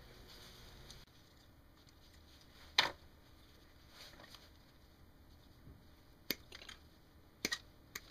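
Small wiring parts and heat-shrink tubing being handled by hand: a few sharp clicks and light taps, the clearest about three seconds in and a pair near the end, over quiet room tone.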